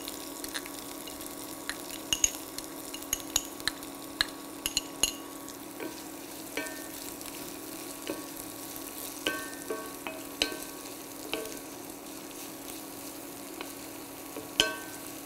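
Chopped onions, green chillies and cumin seeds sizzling in hot oil in a cast-iron skillet, with a wooden spatula clicking, knocking and scraping against the pan as they are stirred. A steady low hum runs underneath, and one sharp knock near the end is the loudest sound.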